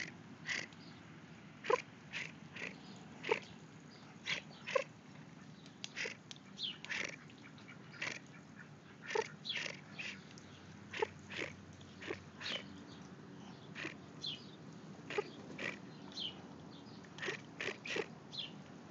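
A steady run of short, high calls in the style of a Muscovy hen, coming about one or two a second.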